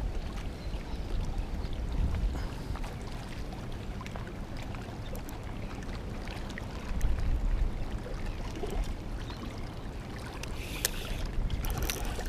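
Wind buffeting a body-worn camera microphone with a low, uneven rumble while a fish is played on a light spinning rod. About eleven seconds in, a short splash as the hooked fish thrashes at the surface near the rocks.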